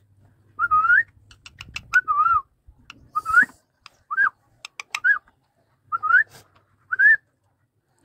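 A clear whistle repeated about eight times, roughly once a second, each a short note sliding upward, with small sharp clicks between the notes.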